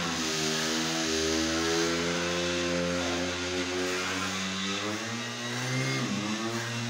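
Handheld electric power tool running on marble, its motor whining with a stack of steady tones. The pitch sags as the tool loads up against the stone near the start and again about six seconds in, then climbs back.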